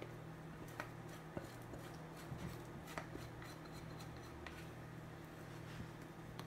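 Spatula scraping and tapping against a glass mixing bowl as sticky bread dough is scraped out, a few faint light clicks spread through, over a low steady hum.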